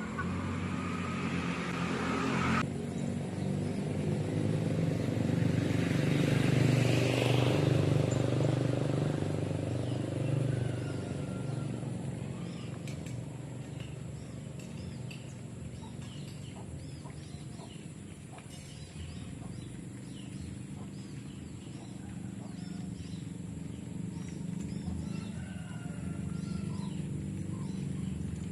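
A motor vehicle passes by, its engine rumble swelling to a peak about seven seconds in and then fading away. After it has gone, faint short chirps and ticks from birds or poultry remain over outdoor ambience.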